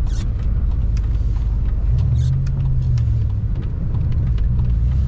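Ram pickup truck's engine and road rumble heard from inside the cab while driving, its engine note rising briefly about two seconds in and easing back, with a few faint ticks.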